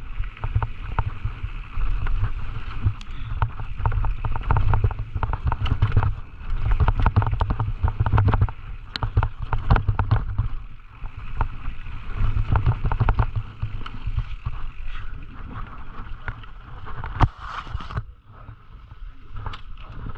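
Scott Gambler 920 downhill mountain bike rattling down a rough trail: a fast, uneven stream of clicks and knocks from chain, frame and tyres over a low rumble of wind on the camera microphone. One louder knock comes near the end.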